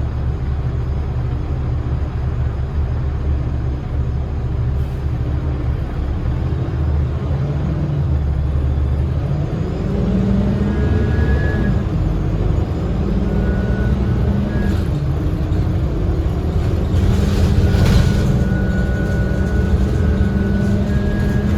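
Cummins ISL diesel engine and Voith automatic transmission of a 2010 Gillig BRT transit bus, heard from on board: a steady low rumble, then from about ten seconds in a louder, gliding drone as the bus pulls harder, with a high whine that comes and goes. A short hiss comes near the end.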